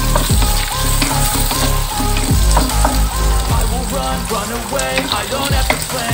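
Carrot and green vegetable strips sizzling in hot oil in a wok while a wooden spatula stirs them, with the spatula knocking lightly now and then. Background music plays underneath.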